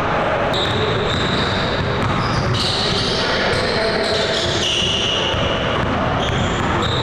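A basketball being dribbled on a hardwood gym court during a pickup game, with players' voices and general court noise in a large gym.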